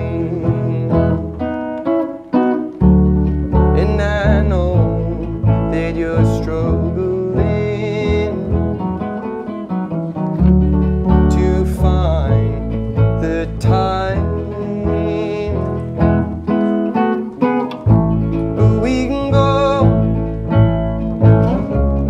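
An archtop acoustic guitar and a plucked upright bass playing a song together, the bass walking through strong low notes under the guitar's chords.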